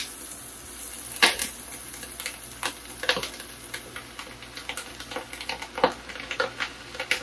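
Duck fat and chopped onion sizzling in a hot stockpot, with irregular crackles and leafy rustling as handfuls of curly kale are pushed in by hand.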